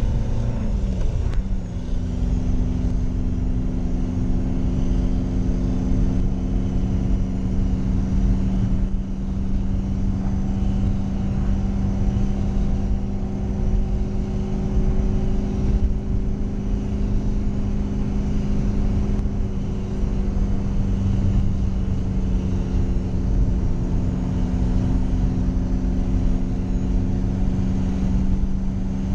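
Fiat Ducato motorhome engine heard from inside the cab, driven hard at speed with a steady drone. About a second in its pitch drops with a gear change, then holds steady.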